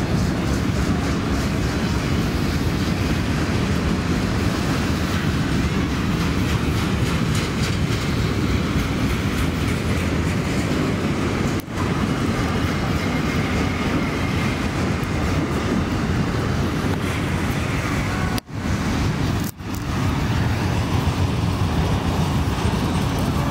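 Freight train of autorack cars rolling past, a steady noise of wheels running on the rails; the sound cuts out for an instant about halfway through and twice near the end.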